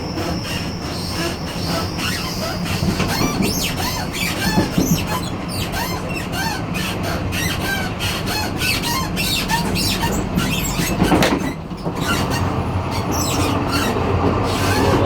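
The gangway between two cars of a moving Taiwan Railways local train: a steady rumble of wheels on rail, with many short squeaks, clicks and rattles from the car connection.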